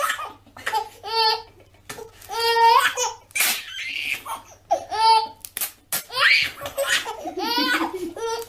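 A baby laughing hard in repeated high-pitched bouts, about one burst of laughter a second.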